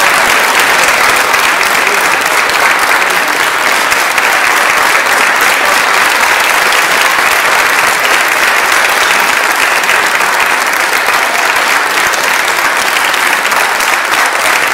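Steady, sustained applause from the audience and the string players, continuous throughout.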